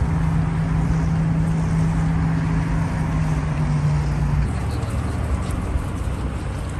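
A steady engine drone, one low hum that holds and then stops about four and a half seconds in, over a continuous wash of traffic rumble.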